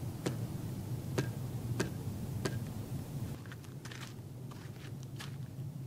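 A few light clicks and taps of handling as a wooden flat bow is readied and an arrow nocked, over a faint steady low hum.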